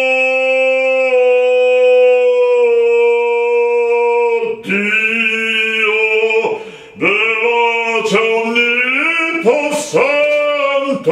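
A man singing in an operatic voice, unaccompanied: one long held note for the first four and a half seconds, stepping slightly down in pitch twice, then a series of shorter sung phrases broken by quick breaths.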